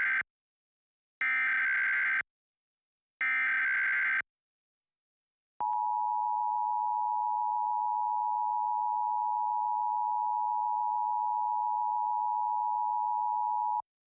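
Emergency Alert System broadcast alert: the end of one short, harsh, buzzing digital data burst, then two more identical one-second bursts a second apart (the SAME header sent three times). After about a second and a half of silence, the steady two-tone EAS attention signal sounds for about eight seconds and cuts off abruptly.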